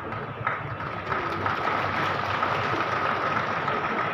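Audience applauding in a large hall, an even clatter that swells slightly, with a steady high tone underneath.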